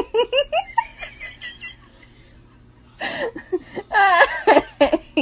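A person laughing: a quick run of short laughs at the start, a lull, then louder laughter from about three seconds in.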